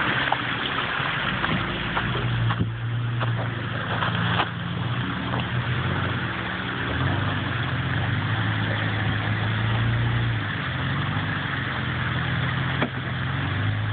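Toyota Land Cruiser 80 series engine running at low revs under load as the truck crawls up rocks, its pitch stepping up and down with the throttle. A steady hiss sits behind it, with a few sharp knocks.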